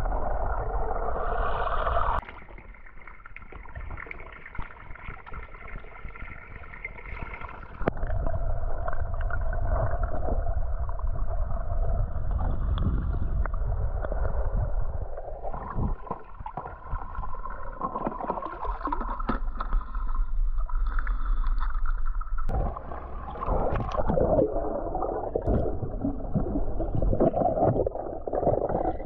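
Water sloshing and gurgling, in several takes with abrupt changes in level about 2, 8 and 22 seconds in.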